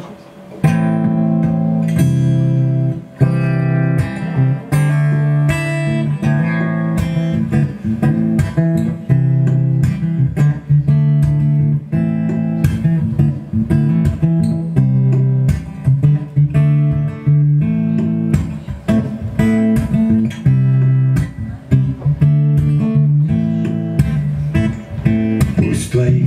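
Solo acoustic guitar playing the instrumental introduction to a song, chords picked and strummed in a steady rhythm.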